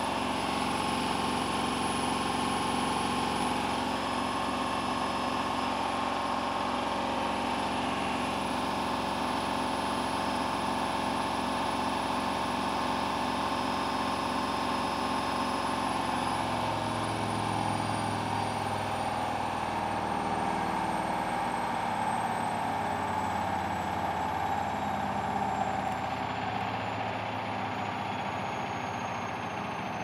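Hoover Dynamic front-loading washing machine on its final spin, set to 1400 rpm: the motor and drum run with a steady high whine. About halfway through the whine starts falling in pitch as the drum slows down.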